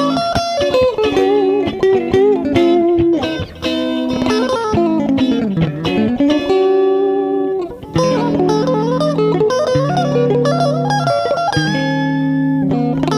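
ESP LTD EC-256 electric guitar played on a clean tone, a melodic line of plucked notes over sustained lower notes, with one note sliding down and back up about five seconds in.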